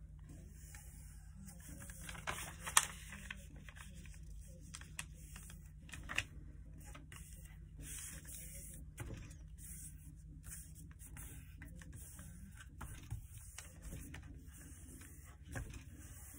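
A sheet of paper being folded and creased by hand against a desk mat: soft rustles and crinkles with scattered light taps, one sharper click about three seconds in. A faint steady low hum runs underneath.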